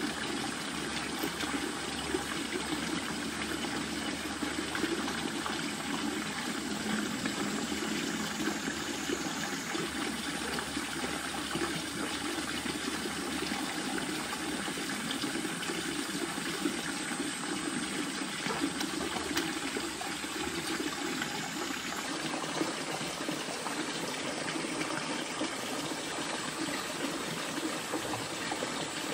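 Steady rushing of flowing water, a constant stream-like noise that holds even throughout.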